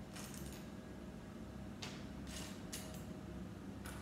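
Quiet handling of Lego bricks and the paper instruction booklet: a handful of short, brisk rustles and clicks, over a faint steady hum.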